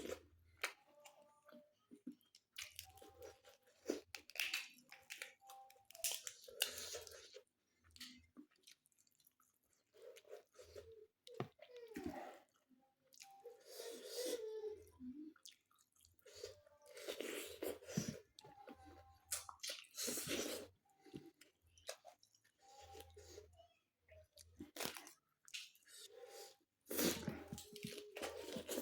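A person chewing and crunching food, in irregular bursts with short pauses between bites.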